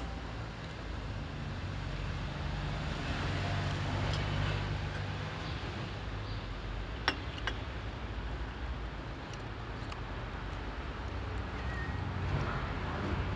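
Steady low rumble of city street traffic, with two short sharp clicks about halfway through, half a second apart.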